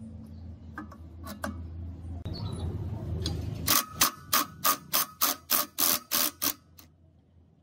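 Cordless ratchet wrench working a rusted mounting bolt on an old air compressor's base: about ten sharp, evenly spaced pulses, roughly three a second, over a few seconds midway. Before it, a few light metal clinks as the compressor's cylinder parts are handled.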